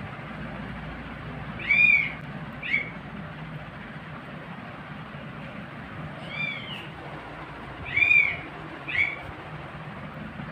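Newborn kittens mewing: five short, high-pitched cries, two of them in quick pairs, over a steady low hum.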